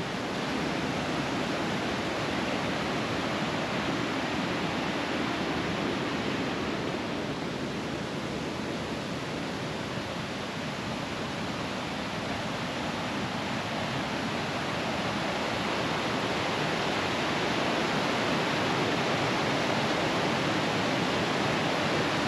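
Rainforest river rushing past: a steady wash of flowing water that swells a little toward the end.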